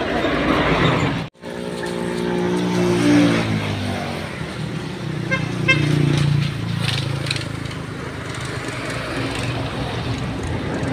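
Water from a garden hose running into plastic gallon jugs, a steady rushing splash as they fill. A vehicle engine hums in the background for a few seconds after a brief dropout about a second in.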